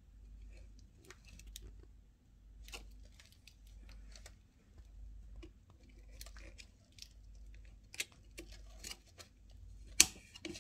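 Hands working on the TV's panel: scattered small clicks, taps and rustling scrapes, with one sharp click near the end, over a faint low hum.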